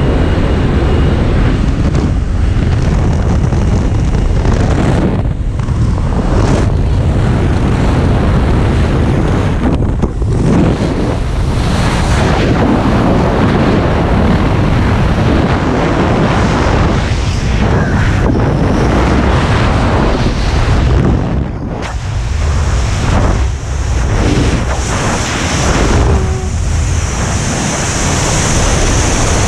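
Freefall wind rushing and buffeting hard over the camera's microphone, a loud, steady rush that drops briefly a few times in the second half.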